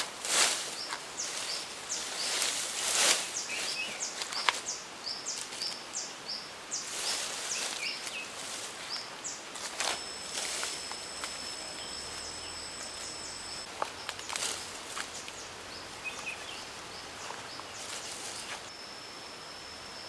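Footsteps and rustling of leafy branches and undergrowth on forest ground, in irregular bursts, loudest in the first few seconds. Short high bird chirps repeat throughout, and a high steady whine sounds for a few seconds about halfway through.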